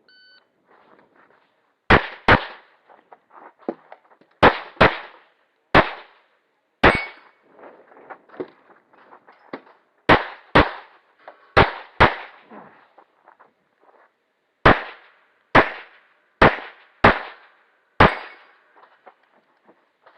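Shot timer's short start beep, then about fifteen pistol shots from a stock service pistol, mostly fired in quick pairs about a third of a second apart, with pauses of one to three seconds between pairs. Each shot rings out briefly after the crack.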